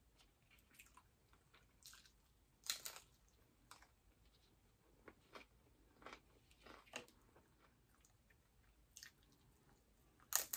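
Faint close-up chewing of crispy fried mini tacos, with scattered crunchy bites among the quieter chewing; the loudest crunch comes a little under three seconds in.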